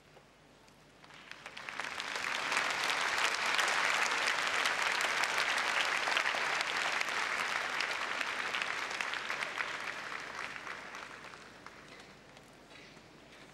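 Large audience applauding: the clapping swells about a second in, holds, then dies away near the end.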